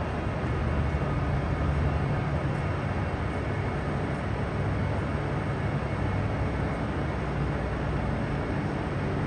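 A train running steadily: a continuous low hum under an even, constant noise, with no sudden changes.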